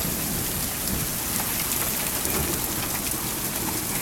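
Hail falling in a dense, steady patter, with many small sharp ticks of stones striking; the hailstones are small, about BB to pea size.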